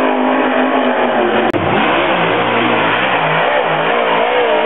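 Dirt late model stock car V8 engines running at race speed, their pitch rising and falling as the cars work through the turns. The sound cuts out for an instant about a second and a half in, then carries on.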